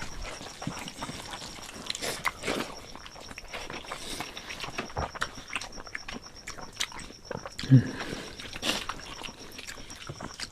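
Close-up eating sounds of people chewing rice and spicy egg curry: wet chewing, lip-smacking and small clicks. A brief low vocal sound comes near eight seconds.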